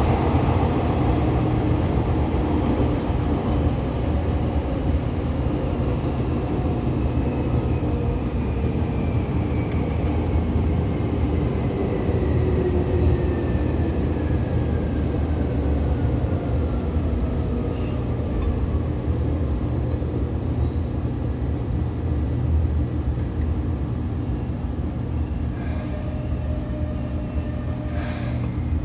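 Seibu 2000-series electric train heard from inside the car: a steady rumble of wheels on rail and running gear, under a motor whine that falls slowly in pitch as the train slows. A few sharp clicks come near the end. The set runs on wheels with flat spots.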